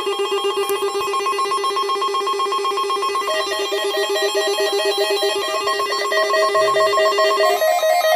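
Electronic alert tone from a weather radio test: a rapid, ringing trill of beeping tones. It steps to a new pitch pattern about three seconds in and again near the end.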